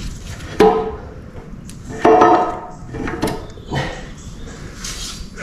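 A heavy steel crankshaft knocking against the cast-iron block and its new main bearing shells as it is settled in by hand: a few ringing metal clanks, the loudest about half a second and two seconds in.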